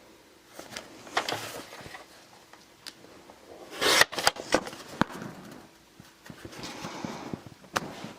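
Cardstock being handled and cut to size: light paper rustling and taps, with a louder swish of the cut about four seconds in.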